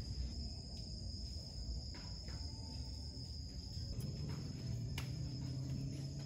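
Crickets chirping in one steady high trill, with a low hum underneath and a few faint ticks.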